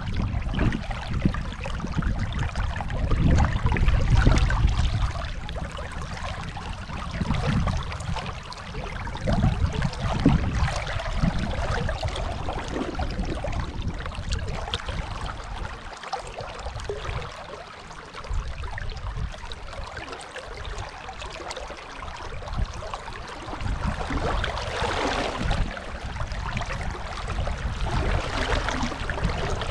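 Rushing river water, a steady wash of noise over a low rumble that swells and fades unevenly.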